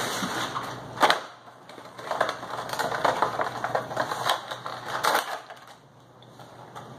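Cardboard box and clear plastic tray of a Funko Pop vinyl figure being opened and handled: crackling and clicking plastic and cardboard, with one sharp snap about a second in.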